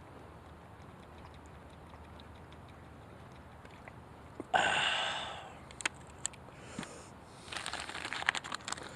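Plastic packaging being handled: a brief sudden burst of rustling noise about halfway through that fades within a second, a few sharp clicks, then crinkling and crackling near the end.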